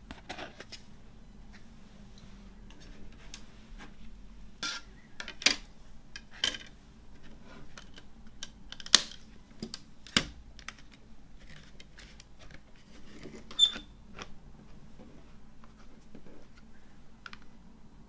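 Hands handling a clear plastic CD jewel case and its discs: light rubbing and tapping broken by several sharp plastic clicks, the loudest about 5, 9, 10 and 13.5 seconds in, as a disc is pressed into the case's tray and the case is closed.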